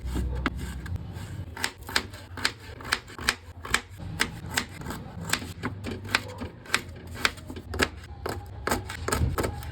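Knife chopping vegetables on a cutting board: a run of sharp, irregular knocks, about two to three a second.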